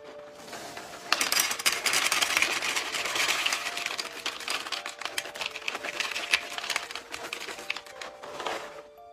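Dry Froot Loops cereal pouring from the box into a paper bowl: a dense rattle of many small pieces hitting the bowl and each other. It starts about a second in, is loudest at first and thins out near the end. Faint background music plays underneath.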